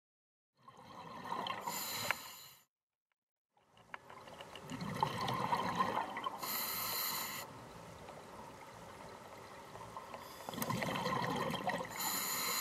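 Scuba diver breathing underwater through an open-circuit regulator: a bubbling rumble of exhaled air, then a short, high hiss of inhalation through the regulator, repeated three times at about five-second intervals. The sound cuts out completely twice in the first few seconds.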